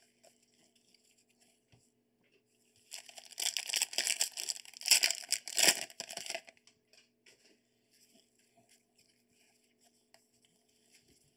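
Crinkly wrapper of a trading card pack being torn open and crumpled, a loud run of tearing and crinkling that starts about three seconds in and lasts about three and a half seconds. Faint rustles and clicks of cards being handled around it.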